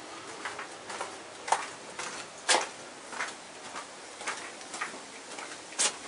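Footsteps walking on a gritty dirt and gravel path, about two steps a second, a few of them louder and sharper.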